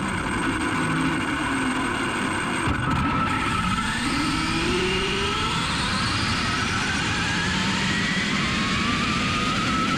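Speed-run RC car heard from onboard as it accelerates at speed: its electric drive whines, with several whine lines climbing in pitch from about four seconds in, over a steady rush of wind and tyre noise.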